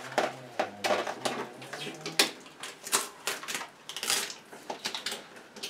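Irregular clicks, taps and rustles of hands working at a new upright freezer and its packaging.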